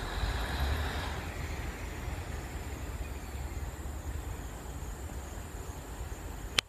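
Low rumble of departing Class 37 diesel locomotives, their English Electric engines, slowly dying away into the distance. A single sharp click just before the end.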